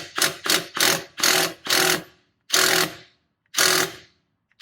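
Impact wrench hammering in a series of short trigger bursts, about eight, the first ones close together and the later ones spaced about a second apart, on a rusty bolt holding the exhaust bracket to the catalytic converter that is not coming loose.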